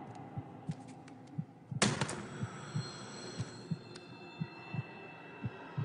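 Heartbeat sound effect: low, regular thumps about three a second over a faint steady hum, with two sharp hits close together about two seconds in.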